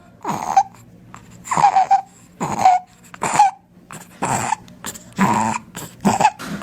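A child breathing with stridor: a high-pitched, whistle-like noise on each breath, about seven breaths. Stridor is the sign of a narrowed upper airway.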